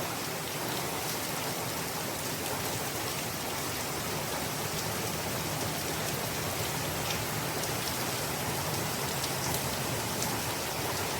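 Heavy hurricane rain falling steadily, an even hiss with faint scattered drop ticks.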